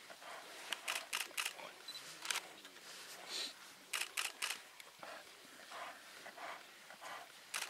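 Camera shutters clicking in short bursts of quick shots: a run of four in the first second and a half, one more a second later, and three together about four seconds in.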